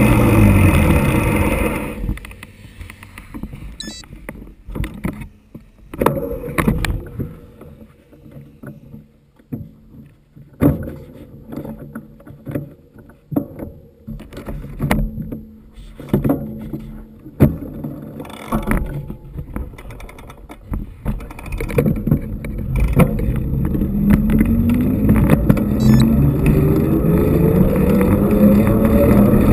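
Rumble of wind and road noise with scattered knocks and rattles from a mountain bike riding downhill on a paved alpine road. A motor vehicle's engine falls in pitch at the start, and an engine rises steadily in pitch near the end as it accelerates.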